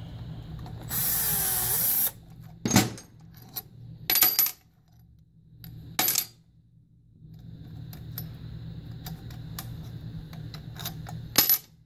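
Cordless drill-driver spinning for about a second, its whine bending in pitch, as it backs out a screw on a Holley four-barrel carburetor. Then several sharp metallic clinks, spread out, of small parts and screws being handled and set down on the bench.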